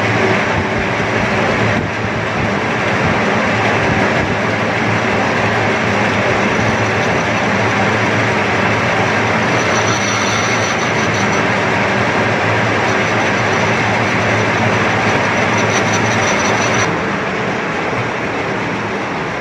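Metal lathe running with its cutting tool scraping inside the bore of a Tullu water pump's housing: a steady, loud metal-cutting noise that eases a little near the end. It is a light skim to clean rust out of the bore.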